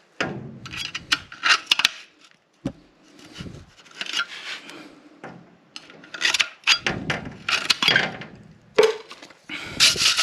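A small tool scraping and rubbing along the crossover channels of a gas furnace's sheet-metal burner assembly to clear them of dust: a run of irregular scraping strokes with sharp clicks and knocks.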